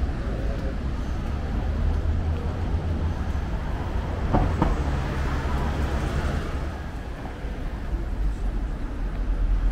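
Traffic on a city street: a steady low rumble, with a vehicle swelling past about five to six seconds in and a brief sharp knock just before it.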